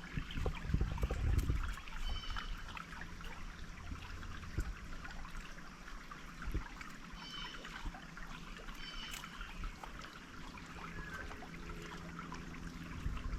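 Stream water trickling steadily, with short high calls every few seconds and a few low thumps in the first two seconds.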